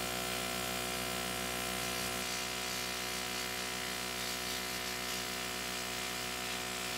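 Airbrush compressor running with a steady buzzing hum, under the hiss of the airbrush spraying.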